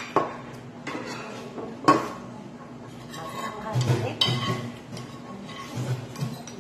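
Metal spoon clinking and scraping against a ceramic plate while food is scooped up, with a few sharp clinks; the loudest comes about two seconds in.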